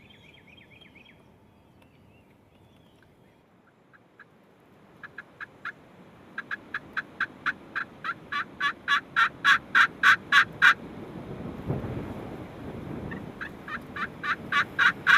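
Wild turkey yelping: a long run of quick, evenly spaced notes, about five a second, growing louder before breaking off, then a second run building again near the end.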